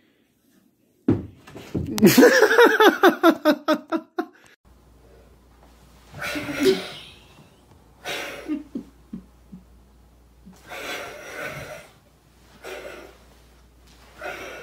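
A person laughing hard in a quick run of pulses for about three seconds, then several shorter bursts of breathy laughter.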